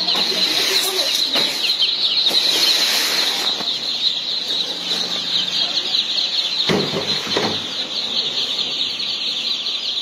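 Dense, continuous chorus of many ducklings and chicks peeping together in crates. A couple of knocks sound about seven seconds in.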